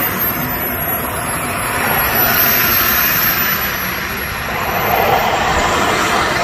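A radio-controlled model jet's miniature turbine engine running as the jet taxis: a steady rushing blast with a thin, very high whine that sags a little in pitch and climbs back.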